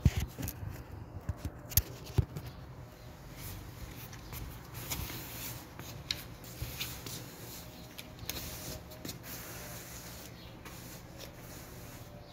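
Broom bristles sweeping fine sandstorm dust across a tiled floor: soft, repeated swishes and scrapes. A few sharp knocks in the first two seconds, with slippered footsteps among them.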